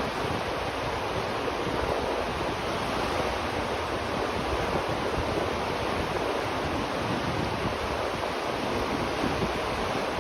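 River water flowing, a steady, unbroken rushing, heard from the space beneath a bridge.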